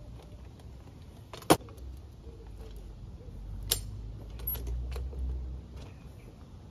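DYU A5 folding e-bike being unfolded: a sharp metal click about a second and a half in and a smaller one near the middle as the frame and handlebar stem hinges swing and latch into place, with light metallic rattling of the frame and parts being handled.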